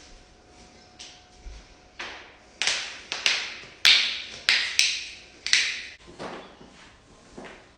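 Joints cracking: a rapid run of about a dozen sharp pops and snaps, each fading quickly, the loudest and closest together in the middle.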